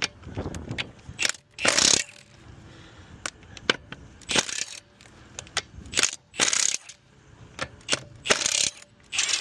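Ratchet wrench clicking in short bursts about every two seconds, with single clicks between them, as the car's wheel bolts are being undone.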